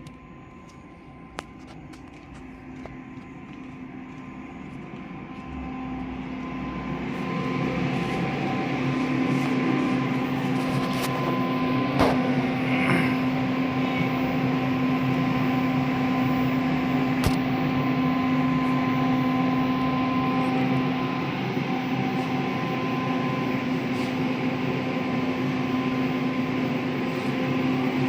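A steady machine hum with several steady tones, growing louder over the first several seconds and then holding level, with a few sharp clicks.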